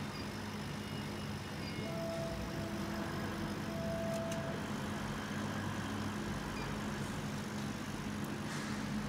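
CO2 laser engraving machine running with a steady hum. About two and four seconds in come short steady whines as its laser head travels along the X-Y gantry.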